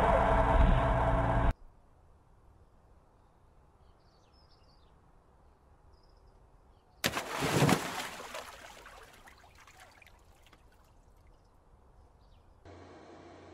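A man falling into a shallow garden pond: one loud splash about seven seconds in, then water sloshing and dying away over about two seconds. Before it, loud music cuts off suddenly near the start, leaving faint outdoor quiet with a few small bird chirps.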